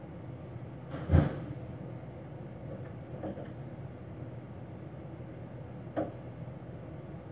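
One loud thud about a second in, then two softer knocks, one about three seconds in and one about six seconds in, over a steady low room hum.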